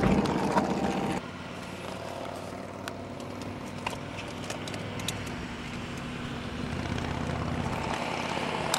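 Car engine idling, heard from inside the cabin. A louder whir cuts off abruptly about a second in, light clicks come and go, and a rushing sound swells near the end.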